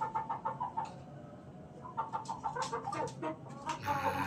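Chickens clucking in a run of short, repeated notes that thin out for about a second early on and then pick up again.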